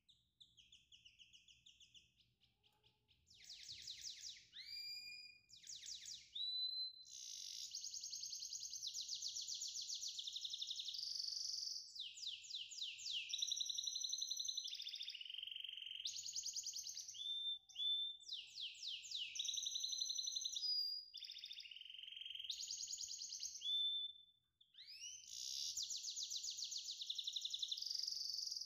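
A songbird singing: high-pitched phrases of fast trills and short whistled glides, repeated with brief pauses.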